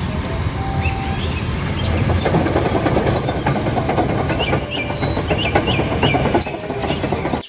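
Caterpillar crawler bulldozer's diesel engine running steadily with the machine standing still, a deep even rumble with a fast clatter in it.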